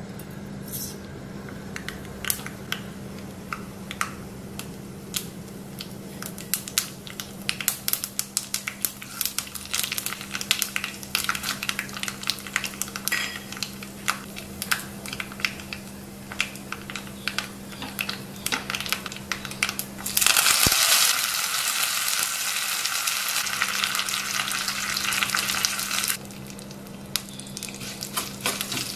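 Spices tempering in hot oil in a small pan over a gas flame: a steady run of sharp crackles and pops. About twenty seconds in, a sudden loud, dense sizzle lasts around six seconds as curry leaves go into the oil, then it eases back to crackling.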